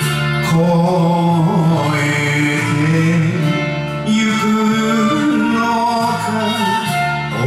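A man singing an enka ballad over a karaoke backing track.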